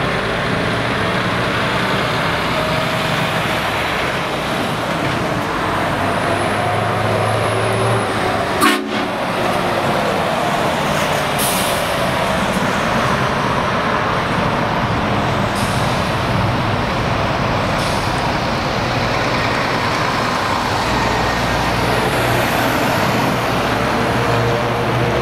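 Scania R730's 16-litre V8 diesel truck engine running as the truck drives through a junction and away, over steady road and traffic noise. A single sharp crack comes about nine seconds in.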